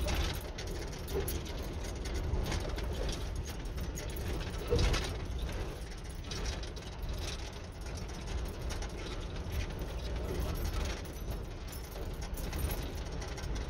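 Footsteps crunching on loose rock and gravel at an uneven pace, over a steady low rumble of wind on the microphone.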